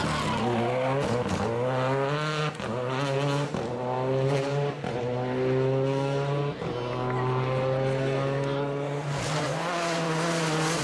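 Renault Clio R3T rally car's turbocharged four-cylinder engine accelerating hard through the gears. The pitch climbs between brief gear-change breaks about once a second, then holds fairly steady and dips near the end.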